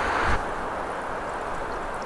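Wind on the microphone: a steady rushing hiss with an uneven low rumble. About a third of a second in, it drops in level and loses its upper hiss.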